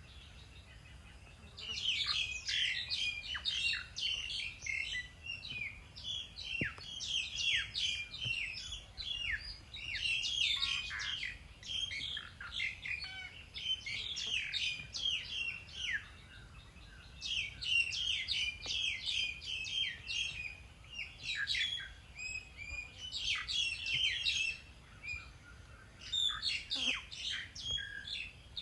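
Small birds chirping and twittering in dense, overlapping runs of short high calls, broken by brief lulls near the start and near the end.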